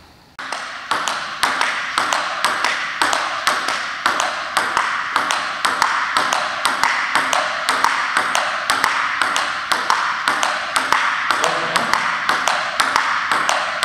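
Table tennis ball being played in a steady forehand rally, the ball clicking off the paddle and bouncing on the table in a quick, regular run of sharp ticks. The ticks start about half a second in.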